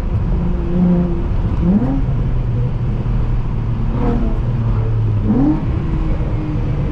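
Full-bolt-on Honda J32A3 3.2-litre V6 in a six-speed manual Accord running under way, a steady drone broken by several quick climbs in revs.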